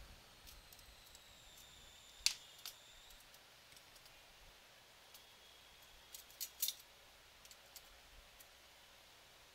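Faint, sharp metallic clicks and taps of a plier and screwdriver on nuts and bolts being tightened on a robot chassis. There is one sharp click about two seconds in and a quick cluster of clicks around six seconds in.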